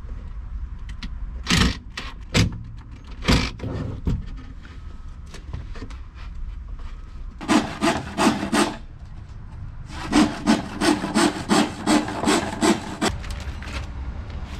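Handsaw cutting through a wooden board: quick back-and-forth strokes in short runs, a few single strokes at first, then a run of about five and a longer run of about a dozen, roughly four strokes a second.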